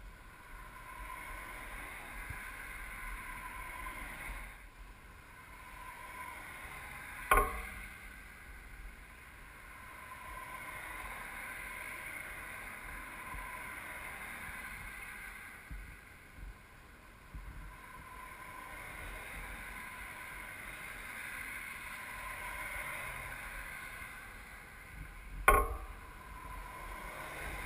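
Road traffic passing: cars' tyres and engines swelling as each approaches and fading as it goes by. Two sharp thumps break in, about seven seconds in and again near the end.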